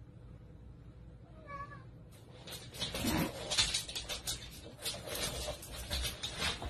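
A cat gives a brief faint meow about one and a half seconds in. From about two seconds on comes a dense plastic clicking and rattling as a collapsible Hoberman-sphere toy folds and clatters around the walking cat.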